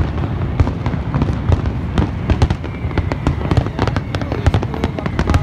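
Fireworks display going off: many sharp bangs and crackles in quick succession over a steady low rumble.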